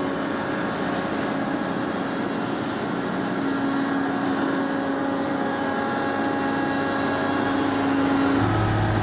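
Steady drone of shipboard machinery, a constant hum with several held tones over a broad rumble. About eight seconds in it shifts to a deeper, stronger hum.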